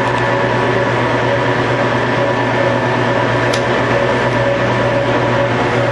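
Steady mechanical hum of running machine-shop equipment: a low drone with several steady tones over it, and a faint click about three and a half seconds in.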